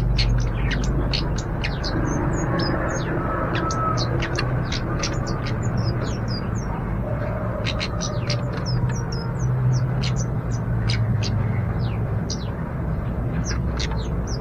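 Kemade bird calling: a rapid run of short, high, sharp chirps mixed with quick down-slurred notes, with a brief pause in the middle. A steady low hum of background noise runs underneath.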